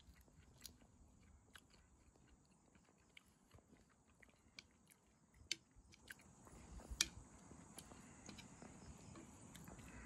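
Quiet chewing and biting of food, with scattered small clicks and one sharper click about seven seconds in.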